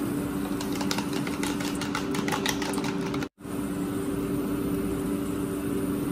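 Steady electric hum from running kitchen appliances, with a run of light crackles from hot cooking oil in a stainless steel pan that grows busier over a couple of seconds and then stops. The oil is heating toward smoking point. The sound drops out for a split second about halfway.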